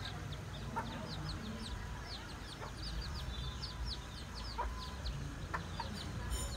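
Chicks peeping steadily, a stream of short, high, falling peeps several a second, with a few clucks from the mother hen.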